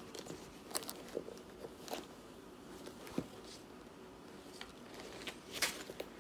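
Handling noise from a pair of chunky sneakers being turned over in the hands: scattered rustles and light clicks of the paper hang tag and plastic wrapping, the loudest rustle near the end.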